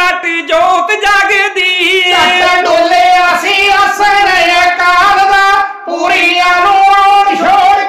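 Two male voices singing kavishri, the Punjabi folk style of poetic singing, together in a high, strained register with long held notes. There is a brief break for breath about six seconds in.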